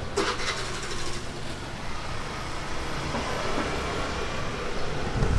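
Steady low rumble of busy market background noise, with a brief clatter near the start as food is handled at the stall.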